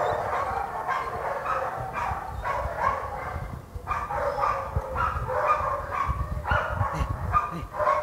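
A dog barking in short, repeated barks, with a brief pause about halfway through.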